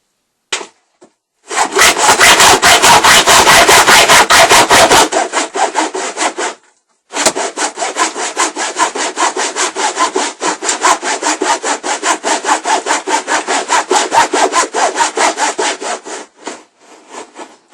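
Hand hacksaw sawing through a screw hidden in the bed's timber framing, with fast back-and-forth strokes. It stops briefly after about six seconds, then carries on in a steady stroke rhythm and peters out near the end.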